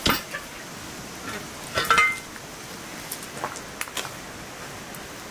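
Cookware clatter: a heavy cast-iron pot lid set down with a thump, then a metal clang with a brief ring about two seconds in, followed by a few light taps and scrapes of a metal skimmer in a cast-iron pan of rice.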